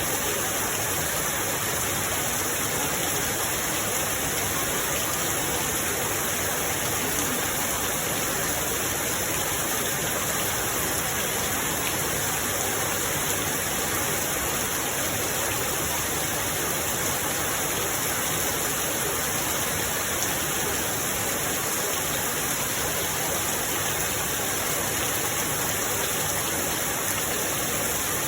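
Steady, even rain hiss, a dense wash with no single drops or thunder standing out and no change in level.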